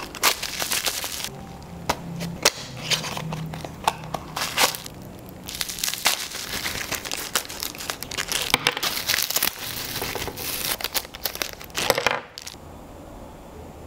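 Clear plastic packaging bags crinkling and crackling as they are handled and opened, with cardboard flaps of a small box being opened at the start. The rustling stops about twelve seconds in.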